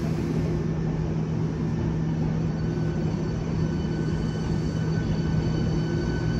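Hankyu commuter electric train rolling slowly past along a station platform: a steady low hum with running noise, and thin high steady tones joining in about three seconds in.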